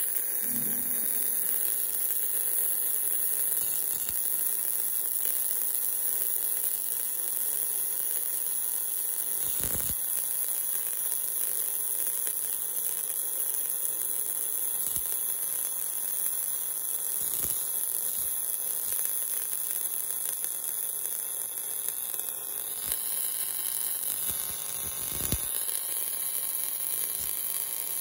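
Welding arc of an automatic longitudinal seam welder running steadily along a tank seam: a continuous hiss, strongest in the high range, with a hum underneath and a couple of faint low thumps.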